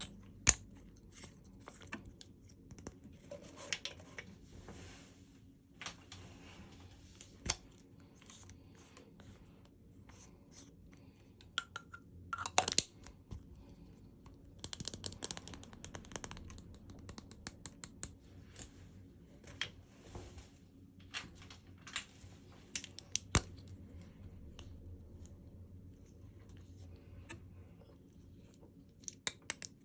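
Packaging being handled and opened by hand: rustling and tearing, with scattered sharp clicks and taps, a few of them loud.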